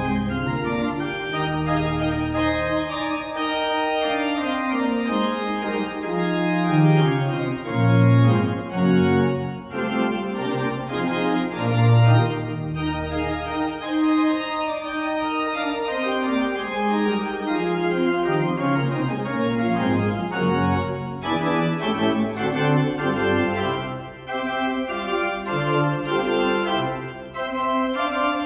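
Church pipe organ playing a piece of sustained chords, its bass line stepping down in runs of notes.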